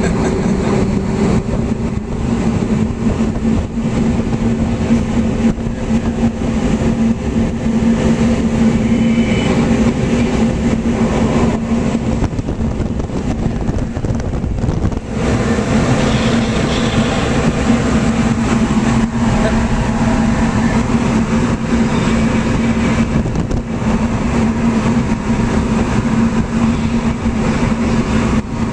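Hurricane simulator booth's blowers driving wind at up to 78 mph: a loud, steady rush of wind buffeting the microphone over a steady fan hum. The rush dips briefly about halfway through.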